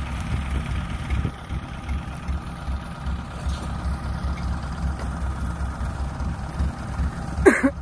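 Diesel engine of farm machinery idling steadily with a low, even throb. A short voice sound breaks in near the end.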